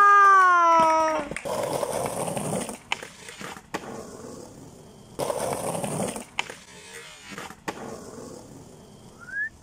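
A person's long held shout, its pitch slowly falling. Then skateboard wheels rolling on rough, crusty pavement in two stretches, with a few sharp clacks of the board between them. A whistle rises in pitch right at the end.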